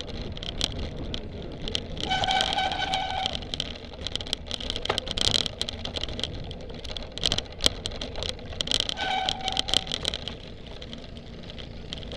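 Cyclocross bike ridden hard over rough grass and dirt: a steady rumble of wind and ground noise, with frequent sharp rattling clicks. A steady pitched tone sounds twice, for over a second about two seconds in and briefly about nine seconds in.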